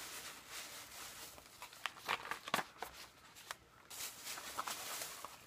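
Small cardboard boxes of nail gel strips handled and shuffled together in the hands: scattered light taps, scrapes and rustles of paperboard.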